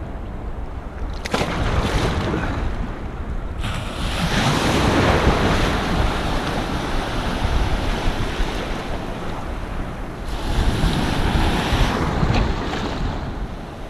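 Surf washing in, with wind buffeting the microphone; the wash swells about a second in, more strongly at about four seconds, and again at about ten seconds.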